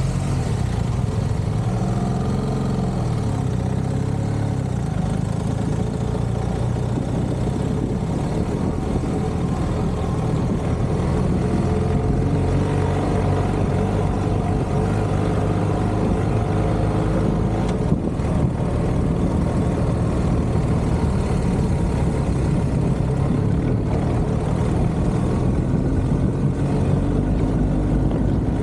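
BMW R1250 GS boxer-twin motorcycle engine running under way on a dirt track, its pitch rising and falling with the throttle a few times near the start, then steadier, over a steady rush of wind and tyre noise.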